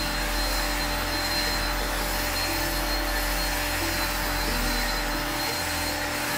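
Cordless drill with a round scrub brush spinning against car floor carpet: a steady motor whine over the scrubbing hiss of the bristles.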